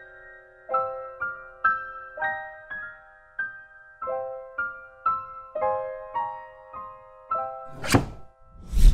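Slow piano music: struck notes and chords, each ringing out and fading. Near the end come two heavy thuds about a second apart, the second the loudest.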